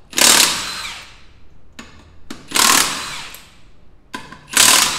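Air impact wrench run in three short bursts about two seconds apart, each a hissing rattle with a falling whine that fades over about a second, as lug nuts come off a wheel for brake work.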